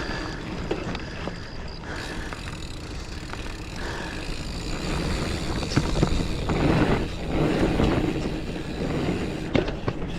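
Giant Fathom hardtail mountain bike rolling over a dirt trail: tyre noise and rattling from the bike, dotted with sharp clicks and knocks, louder from about five seconds in.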